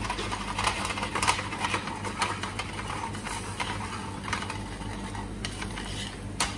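A utensil scraping and stirring in a pan of cream sauce, in irregular short strokes, with two sharp clinks near the end.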